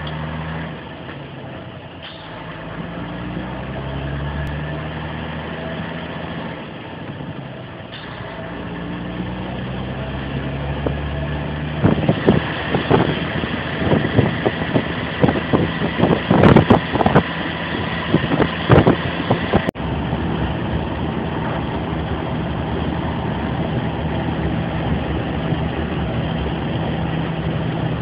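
DAF truck's diesel engine heard from inside the cab, pulling through the gears: the engine note climbs, then steps down at gear changes about two seconds and eight seconds in. From about twelve to nineteen seconds, irregular thumps and rattles break in. After a sudden cut near twenty seconds, the engine runs steadily at cruise.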